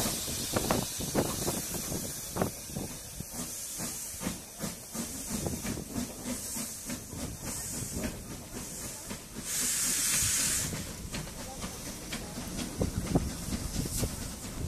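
A 1943 Robert Stephenson & Hawthorns saddle tank steam locomotive hissing steam. A louder burst of steam comes about ten seconds in, with scattered short knocks and clanks throughout.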